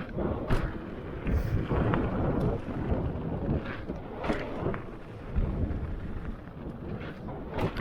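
Mountain bike riding fast over a rough dirt trail: a steady rumble of tyres and wind buffeting the microphone, broken by several sharp knocks and rattles as the bike hits bumps.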